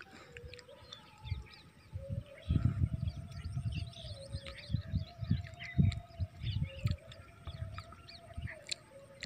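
Small birds chirping and twittering busily in the open field, many short high calls, over irregular low thumps and a faint wavering hum.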